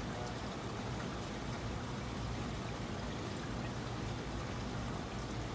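Steady running and trickling water from the filtration of a rack of aquarium display tanks.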